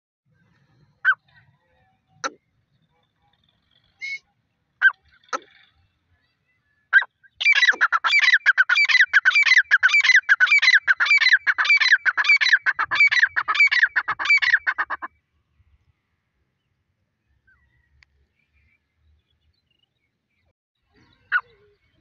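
Female gray francolin calling: a few short single calls, then a fast run of repeated calls lasting about seven seconds, each call falling in pitch, and two more single calls near the end.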